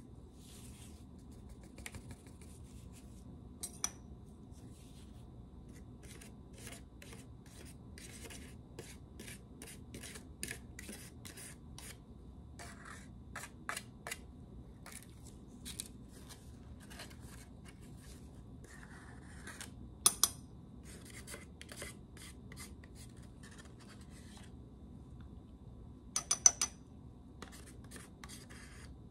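Metal pharmacy spatula scraping cream and powder off a plastic weighing boat into a ceramic mortar: a long run of short, irregular scratchy strokes. There are a few sharp clicks along the way, the loudest near the end.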